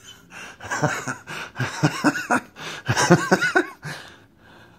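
A man laughing in a string of short bursts that trail off near the end.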